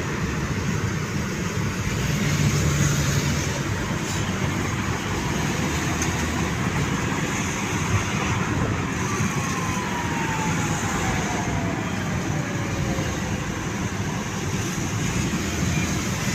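Steady road traffic noise: a constant rumble and tyre hiss of vehicles on the road. A faint whine falls slowly in pitch about two-thirds of the way through.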